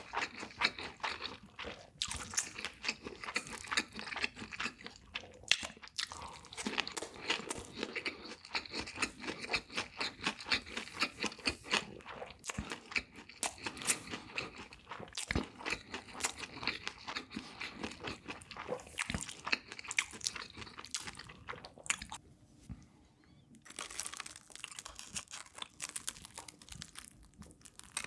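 Close-miked eating: a person biting and chewing crunchy food, a dense run of crisp crunches with a short lull about three-quarters of the way through.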